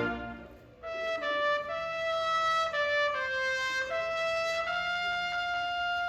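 The marching band's full chord dies away in the first second. Then a solo trumpet plays a slow melody alone, one held note after another.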